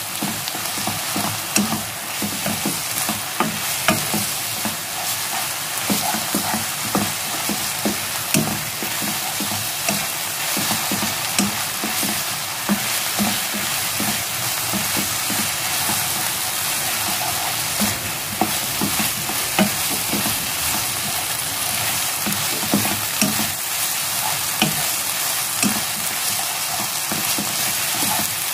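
Instant ramen noodles and sliced onions sizzling in oil in a nonstick frying pan, stirred and tossed with wooden chopsticks. A steady hiss runs under frequent light taps and scrapes of the chopsticks against the pan.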